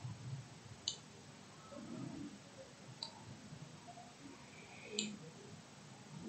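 Four faint, sharp clicks of a computer mouse, spaced one to two seconds apart, over quiet room tone.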